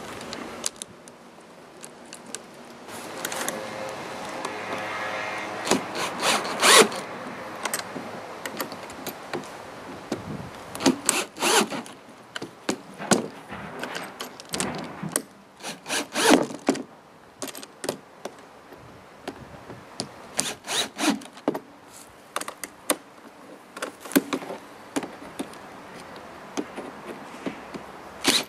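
A cordless drill-driver runs in short bursts as it drives bolts into a plastic feeder trough's end piece. Knocks and scraping come from the plastic trough and its fittings being handled.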